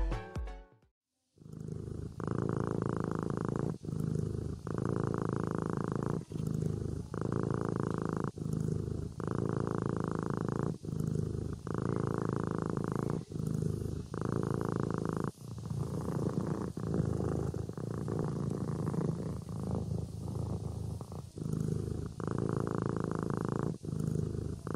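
Kitten purring while asleep: a steady low rumble that breaks briefly at each breath in and out, about every one to one and a half seconds.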